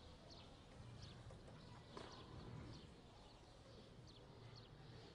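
Near silence: faint ambience with a low hum and scattered faint, short high chirps, plus a faint click about two seconds in.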